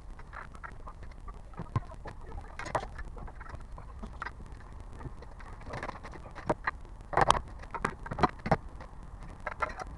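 Hyundai Grandeur HG knocking and rattling: irregular sharp clicks and clunks, the loudest cluster about seven to eight and a half seconds in, over a steady low rumble.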